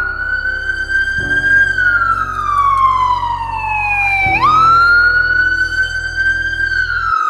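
Loud emergency vehicle siren on a slow wail: the pitch falls slowly, jumps back up about four seconds in, holds for a couple of seconds, then starts to fall again near the end.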